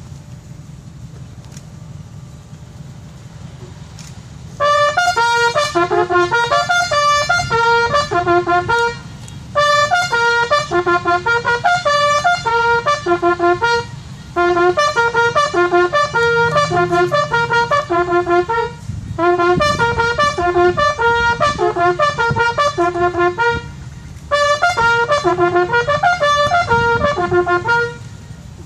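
A solo brass bugle call, sounded in five lively phrases of quick notes with short breaks between them, starting about five seconds in.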